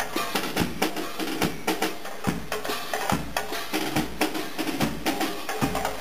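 Marching drummer playing a bass drum and snare drum in a steady march beat: low bass drum thumps under quicker, sharper snare strokes.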